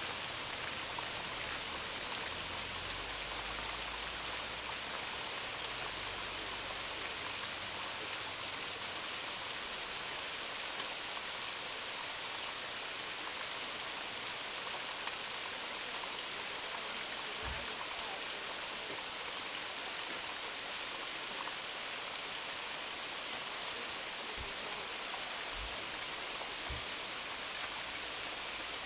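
Waterfall rushing, a steady even hiss of falling water, with a few soft low bumps in the second half.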